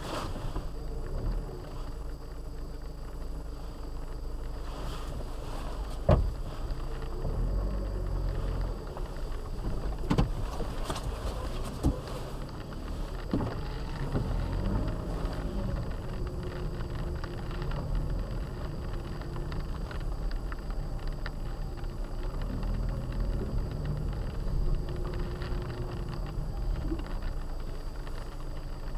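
Low, steady rumble of a car heard from inside the cabin as it drives slowly over wet pavement, with a few sharp knocks along the way.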